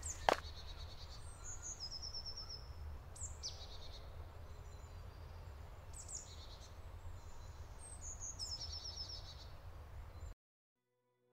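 Small songbirds singing, short high chirps and trills every few seconds over a low steady rumble, with one sharp tap just after the start. The sound cuts out about ten seconds in.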